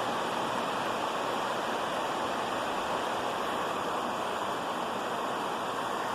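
Steady rain falling, an even hiss with no thunder or other sudden sounds.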